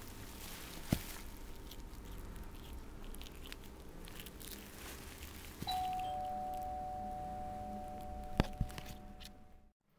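Crinkly rustling of shiny shredded paper as a kitten scrabbles in it, with a sharp knock about a second in. Just past halfway a two-note doorbell chime sounds, a higher note then a lower one, ringing on and slowly fading, with two more knocks near the end before the sound cuts off.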